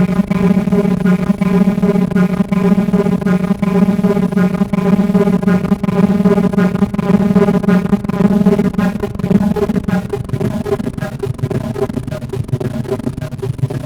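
Soma Laboratories Lyra-8 analog synthesizer droning: a loud, sustained low tone thick with overtones, pulsing slightly, with a gritty crackle. About ten seconds in the steady drone breaks up into a rougher, noisier texture and gets a little quieter.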